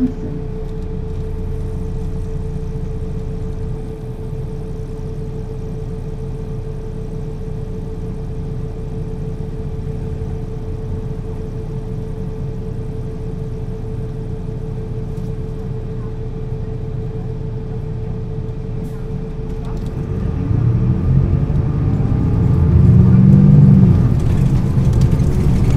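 MAN NL 223 city bus's diesel engine running at a steady idle with a constant whine. About twenty seconds in, it revs up and climbs as the bus accelerates through its Voith automatic gearbox.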